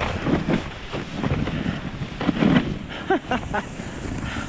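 Skis scraping over crusty, tracked-out snow in uneven bursts as the skier turns, with wind buffeting the microphone.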